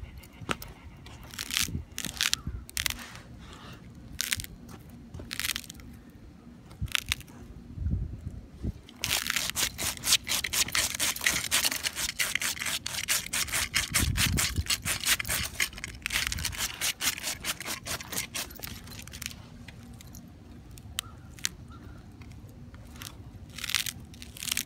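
A husky's claws scratching and digging at icy pavement and crusted snow: scattered scrapes at first, a long stretch of rapid, continuous scratching in the middle, then scattered scrapes again.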